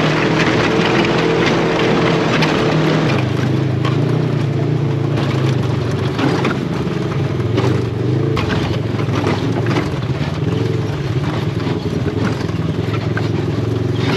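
Polaris RZR side-by-side engine running under way, heard from inside the open cab, its pitch rising and falling with the throttle from about four seconds in. Occasional knocks and rattles from driving over the rough, rocky trail.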